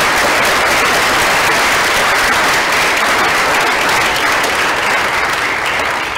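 Audience applauding: dense, steady clapping from a large crowd that begins to die away near the end.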